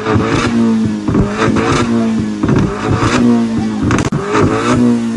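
Vauxhall Corsa VXR's turbocharged 1.6-litre four-cylinder, heard at the exhaust, blipped from idle about four times in quick succession. Each rev rises and falls with sharp pops and crackles on the overrun, typical of a pop-and-bang tune and a loud aftermarket exhaust.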